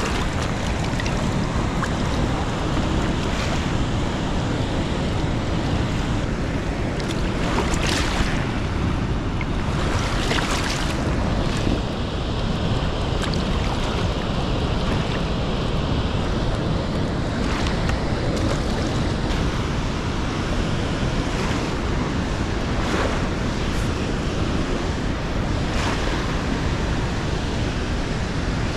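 Steady rush of a high-flowing tailwater river, with a few brief splashes.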